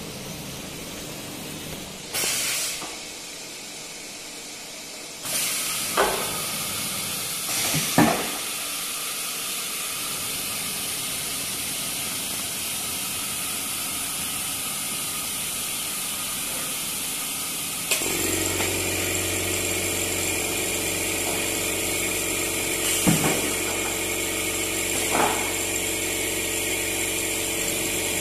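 CNC router with an automatic tool changer working: a steady hiss of compressed air, broken by several sharp clunks. A steady mechanical hum with fixed tones joins suddenly about two-thirds of the way in.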